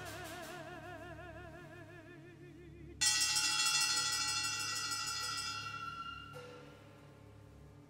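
Contemporary orchestral music: a soprano's held note with wide vibrato fades out over a low sustained drone, then about three seconds in a sudden loud accented chord from high oboes with bright metallic percussion rings out and slowly dies away.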